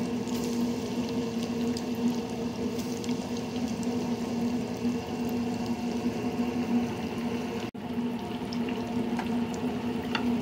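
Hot oil in a deep fryer bubbling and sizzling steadily as cornmeal-breaded catfish pieces fry, over a steady low hum. The sound cuts out for an instant about three-quarters of the way through.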